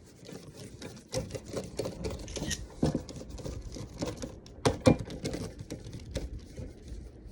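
Irregular light tapping and clicking, with a few sharper knocks near the middle.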